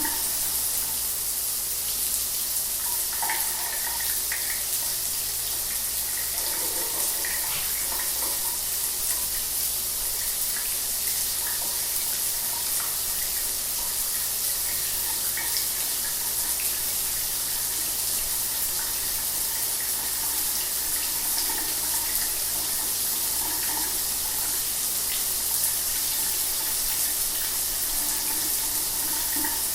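Shower water running steadily: a constant hiss of spray with faint irregular splashes.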